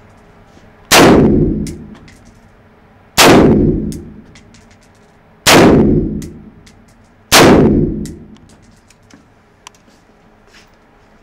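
An M4 carbine fired in single shots at an indoor range: four loud shots about two seconds apart, each echoing in the room for about a second. Light clinks sound between the shots.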